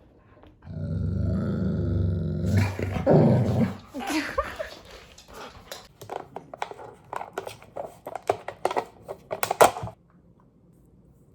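Large pet dog growling in a long, low grumble for about three seconds, then a run of short clicking sounds and brief noises that stops about ten seconds in.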